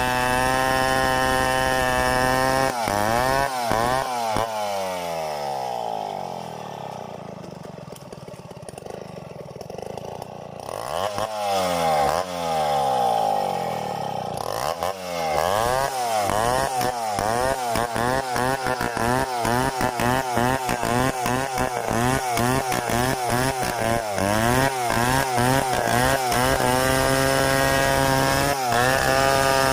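Stihl 070 two-stroke chainsaw running hard. Its engine speed rises and falls repeatedly, drops lower and quieter for a few seconds, then rises and falls rapidly many times before settling back to a steady high speed. This is typical of the saw working through a freehand milling cut.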